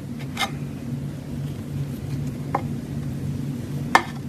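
Fingers poking and pressing clear slime topped with clay powder, giving a few separate soft pops or clicks, the loudest near the end, over a steady low hum.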